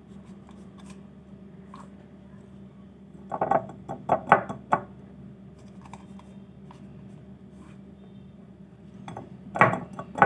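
Spoon scooping baking soda and scraping and clinking against a glass, in two short clusters about three seconds in and again near the end, over a steady low hum.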